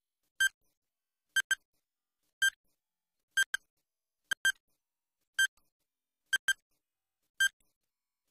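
Electronic countdown-timer beeps ticking off the seconds of a quiz's answer time: one short, high beep about every second, alternating between a single beep and a quick double beep, with silence between.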